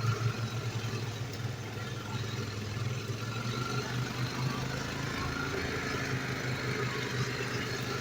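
Quad bike (ATV) engine running steadily while riding, a continuous low hum with no change in revs.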